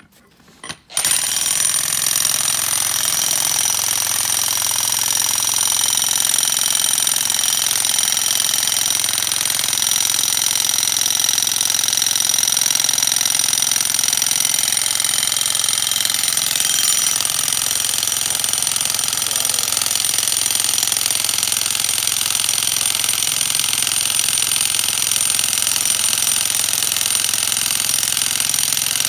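Corded electric jackhammer starts about a second in and then runs steadily, driving a 50-inch steel pier rod at an angle through frozen ground.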